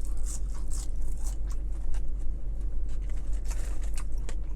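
Rustling and scraping of fast-food paper bags and wrappers being handled, in short scattered crackles, over a steady low hum of a car idling.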